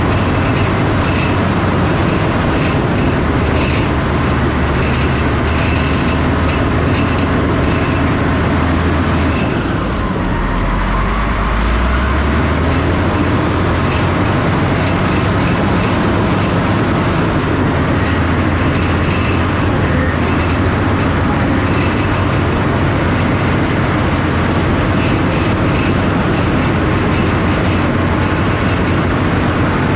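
Diesel engine of a heavy earthmoving machine running steadily under load while pushing and stripping topsoil, with mechanical clatter. The engine note drops and picks back up about ten seconds in.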